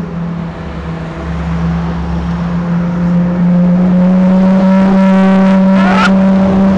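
Ferrari sports cars in a slow parade driving past, their engines running steadily and getting louder as they come close. About six seconds in, a short rising rev.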